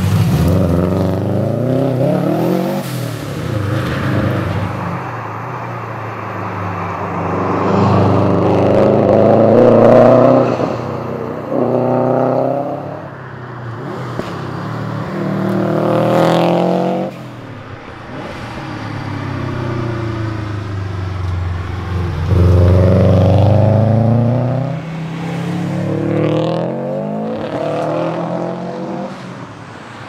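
Subaru Liberty RS Turbo's turbocharged flat-four engine revving hard as the car accelerates and changes gear, the pitch climbing and dropping back again and again. Several separate runs past follow one another, with abrupt cuts between them about halfway through and again a few seconds later.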